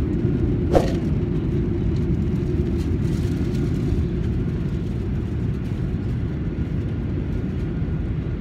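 Airliner cabin noise in flight: a steady low rumble from the engines and airflow, with a brief knock about a second in.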